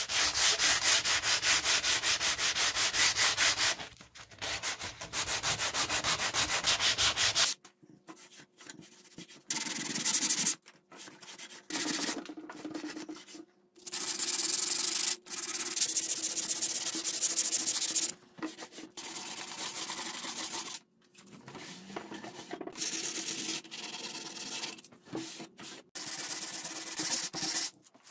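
Sandpaper rubbed by hand over the finished wood of a bench, scuffing off the old finish in rapid back-and-forth strokes. A long continuous run at the start, then shorter runs of a few seconds broken by brief pauses.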